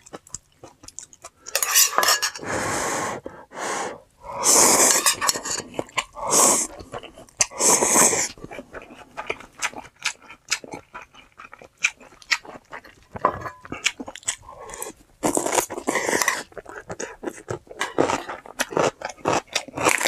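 Close-up eating of spicy instant ramen with chonggak (ponytail radish) kimchi: utensils clicking against the bowl, chewing and crunching, with several louder noisy bursts a second or two long.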